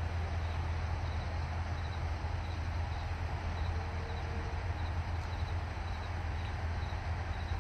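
Steady low hum and background noise at a rail platform, with a faint high chirp repeating about twice a second.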